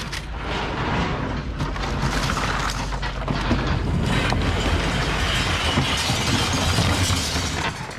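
Sheet-metal cabinet scraping and rattling as it is pushed and tipped over, with plastic computer keyboards clattering inside it; the continuous noise stops abruptly near the end.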